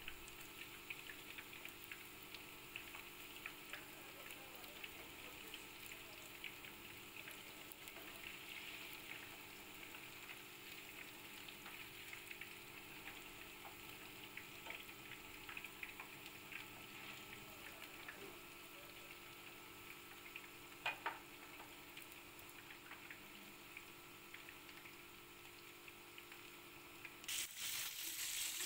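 Marinated fish pieces shallow-frying in hot oil in a pan: a faint, steady sizzle full of small crackles. A brief double knock comes about two-thirds of the way through, and the sizzle grows louder just before the end.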